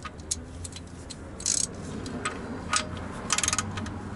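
Ratchet clicking in short runs as the engine oil drain plug is tightened, only lightly because it seats on an aluminium sealing washer. A few single sharp ticks, with a quick run of clicks about a second and a half in and another near the end.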